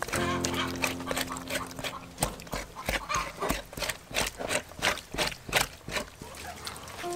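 Wet squelching and slapping of hands scrubbing raw beef tripe, in quick rhythmic strokes of about three a second. A steady held tone sounds under it for the first two seconds.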